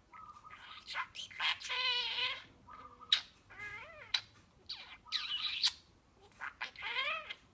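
Budgerigar chattering: a run of quick chirps, squawks and warbling calls that bend up and down in pitch, with one sharp click-like chirp about three seconds in.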